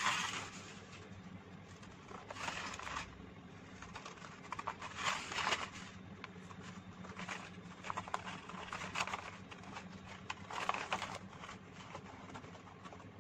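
Scissors cutting thin white chart paper along a drawn curve, in short faint bursts of snips every second or so, with the paper rustling as it is turned.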